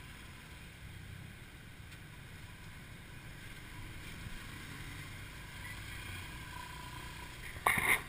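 Motorcycle taxi riding through city traffic, heard from the pillion seat: a steady low engine rumble with wind and road noise, and a brief louder burst of noise near the end.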